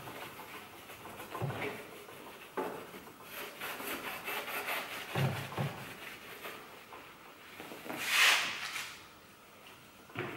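An applicator pad rubbing polishing compound by hand over a Vespa's painted steel side panel, in repeated strokes with a few light knocks and one louder swish near the end. It is the hand-polishing stage of cleaning up original paint with a medium-cut compound.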